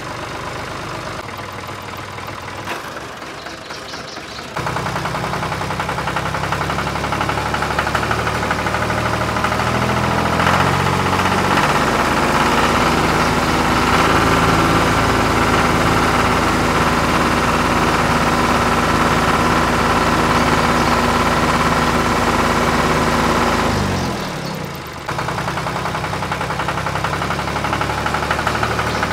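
Tractor engine sound running steadily with a knock. It steps up louder about four seconds in and breaks off briefly a few seconds before the end, like an engine sound track cut between shots.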